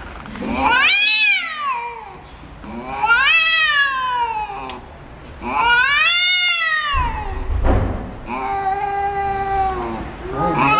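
Cats in a face-off yowling: about four long, drawn-out caterwauls, each rising and then falling in pitch, the last one lower and held steadier, an aggressive warning before a fight.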